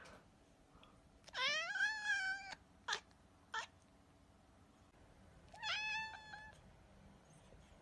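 A cat meowing: a long meow that rises then holds about a second and a half in, two short sounds around three seconds, then a second, shorter meow near six seconds.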